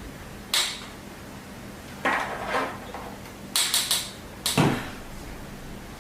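Sharp clicks and knocks of hard soldering-station parts being handled and fitted together, likely the soldering handle going into its bracket holder, with a quick run of three clicks about halfway through.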